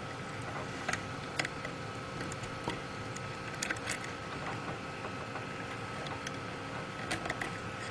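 Scattered small plastic clicks and handling noise as female jumper-wire connectors for a stepper motor are pushed onto the header pins of a RAMPS board, over a steady faint hum.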